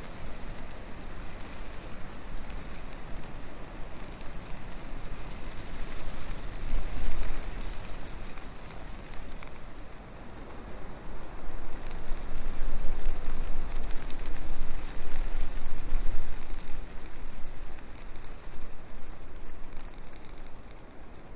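Wind and propeller noise on the microphone of a flying quadcopter's camera: a dense hiss with a low rumble, swelling and easing unevenly.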